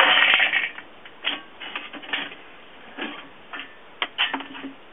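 Lit charcoal released from a trigger-release chimney starter into a kamado grill's charcoal basket: a loud clattering rush as the coals drop, then scattered clinks and rattles as they settle.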